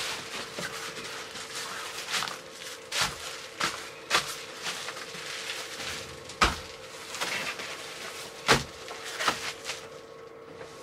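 Rustling and a series of sharp clicks and knocks from handling a motorhome's windscreen blind against the glass inside the cab, over a steady hum.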